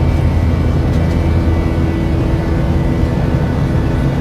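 Steady cabin noise inside an Airbus A350 airliner: an even low rumble with a steady hum.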